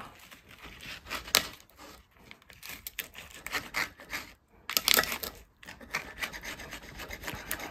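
Knife sawing back and forth through a toasted tortilla quesadilla on a plate, a run of scratchy rasping strokes with a short pause a little past halfway. The crisp tortilla is hard to cut through.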